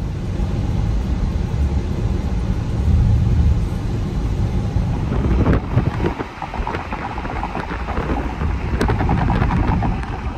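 Road noise heard inside a car moving at highway speed: a steady low rumble of tyres and engine with a hiss above it. The rumble thins out about six seconds in, leaving a lighter hiss.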